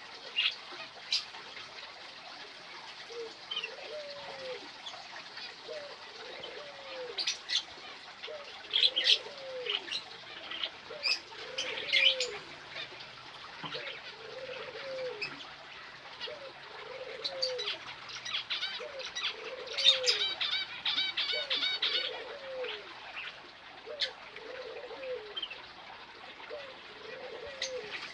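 A dove cooing over and over, a low arching coo about every second and a half, while smaller birds chirp sharply above it, with a quick run of chirps near the middle.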